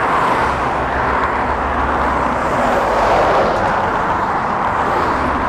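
Road traffic on the A14 crossing the Orwell Bridge, cars and trucks passing close by: a steady rush of tyre and engine noise with a low rumble, rising and falling as vehicles go past.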